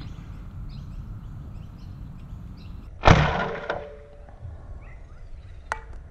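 Sabre M20S foam-dart sniper blaster with a 26 kg spring firing once, a sharp spring-piston shot about three seconds in, followed half a second later by a lighter click.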